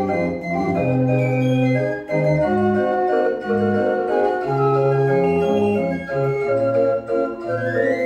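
Dutch street organ (draaiorgel) playing a tune on its pipes: held melody notes over a bass line that steps from note to note, with a quick rising run near the end.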